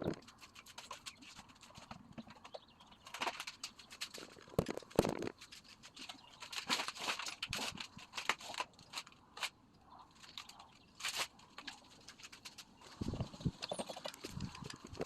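Irregular knocks, clicks and scraping of hand work with tools and parts, with louder clusters about three to five seconds in, around seven and eleven seconds, and near the end.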